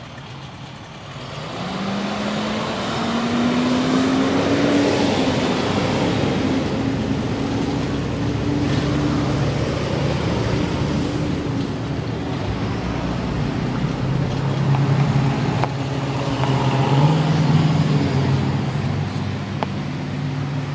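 Road traffic: a motor vehicle's engine running and pulling up in pitch over the first few seconds, then holding a steady lower note, over a continuous rush of road and wind noise picked up by a phone on a moving bicycle.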